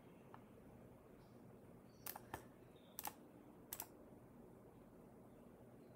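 A few faint computer mouse clicks over near-silent room tone: one light click early, then three quick press-and-release pairs about two, three and three-and-a-half seconds in.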